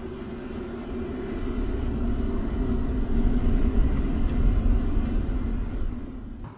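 Homemade rocket motor, a red can packed with burning propellant, firing and jetting flame, thick white smoke and sparks: a steady rushing rumble that grows louder over the first few seconds and then holds.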